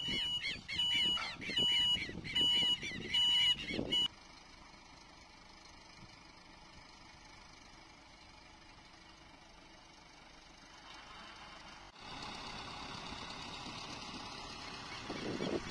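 Geese honking repeatedly for about four seconds. After that comes a quieter, steady outdoor background that grows louder about twelve seconds in.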